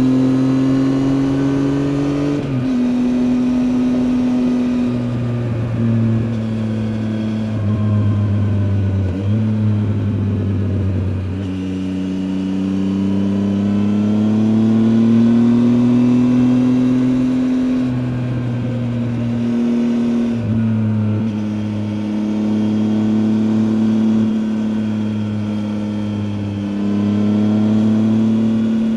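2019 Triumph Tiger 800 XCA's three-cylinder engine under way, the revs rising and falling several times, with short breaks where the throttle closes or gears change.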